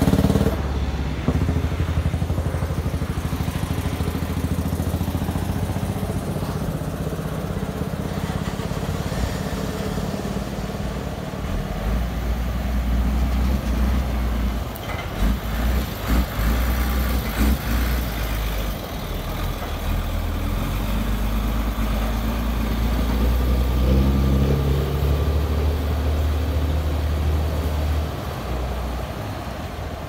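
Heavy diesel engines running steadily: a decorated transport truck's engine at the start, then a small tracked rice combine harvester's engine as it drives over the field edge. The low engine drone grows heavier about twelve seconds in and eases off near the end.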